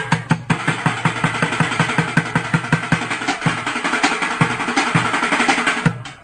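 City street traffic noise with a motor vehicle engine running, laid over a steady drum beat. The street noise fades away near the end.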